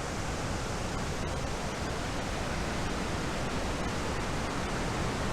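Steady rushing roar of a flood-swollen waterfall, the normally trickling falls running as a torrent after Hurricane Ida's rain.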